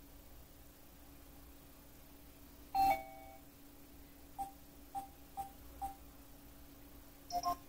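Electronic alert tones from a phone alarm app: a single chime that rings out about three seconds in, four short beeps about half a second apart, and a quick two-note chime near the end, over a faint steady hum.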